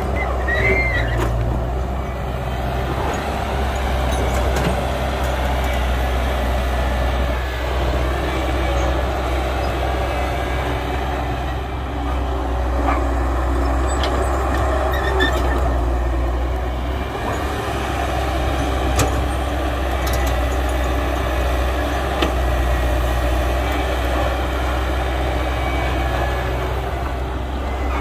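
Heavy diesel engine machinery of a Cat excavator digging and loading a dump truck, running steadily with a deep low hum. A few sharp knocks and clanks come through along the way.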